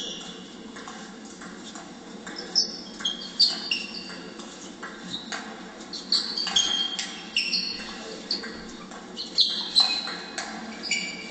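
Table tennis rally: the ball clicking off bats and table again and again, with sports shoes squeaking sharply on the sports hall floor as the players move.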